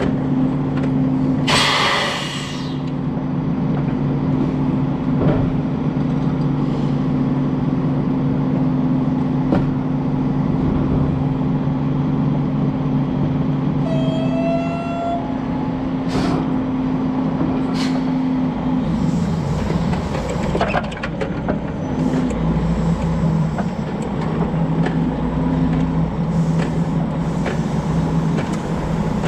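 Semi truck's diesel engine running with a steady low hum, and a short burst of air hiss from the air system about two seconds in. A brief squeal sounds around the middle, and the engine note shifts in the second half as the truck starts to move.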